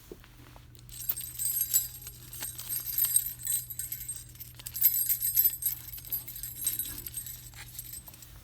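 Small metal or glass items jingling and clinking as they are handled, in repeated bursts starting about a second in.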